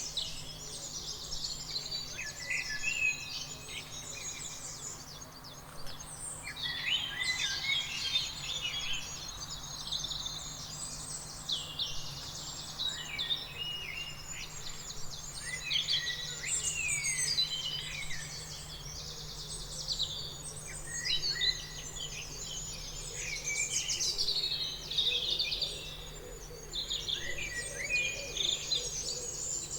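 A chorus of many songbirds chirping and singing at once, dense overlapping short calls and quick whistled glides, thinning briefly a few seconds in, over a faint steady low hum.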